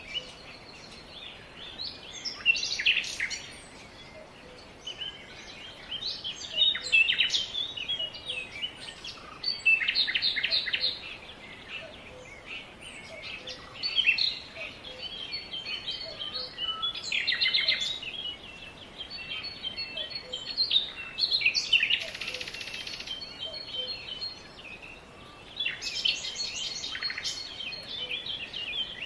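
Several songbirds chirping and trilling in quick bursts every second or two over a faint steady background hiss, with a short buzzy call about three quarters of the way through.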